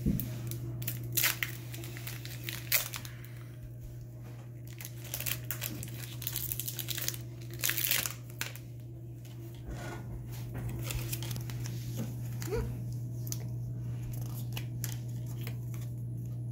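Foil wrapper of a Pokémon booster pack crinkling and tearing as it is opened by hand, in irregular bursts of sharp crackles, then the cards are slid out.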